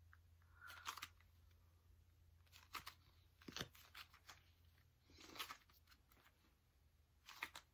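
Very faint, scattered soft tearing and crackling of Model Magic clay being stretched, pulled apart and kneaded by hand, six or so brief noises over a low steady hum.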